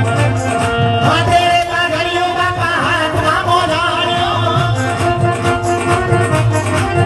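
Devotional folk song: a singing voice over instruments with a steady beat, the voice coming in about a second in.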